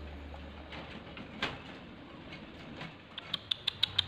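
Quiet room tone with a single click about one and a half seconds in, then near the end a quick run of sharp ticks, about six a second, from cats chewing their food at their bowls.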